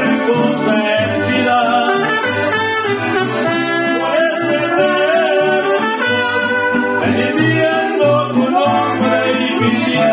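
Mariachi band playing with a man singing, a guitarrón plucking bass notes underneath and brass in the melody.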